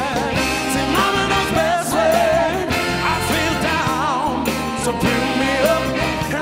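A male singer sings long, wavering notes with vibrato over a loud live band backing with a steady beat.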